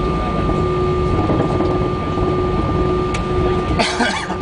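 Airbus A320 cabin noise while taxiing: the engines run at low power with a steady whine and an on-off tone over a low rumble. A brief rushing burst comes near the end.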